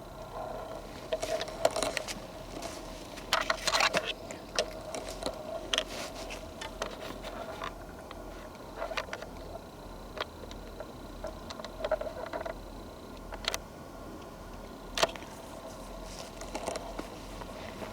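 Footsteps crunching on twigs and leaf litter on a forest trail, in irregular clusters about a second apart, with rustling from the hand-held camera.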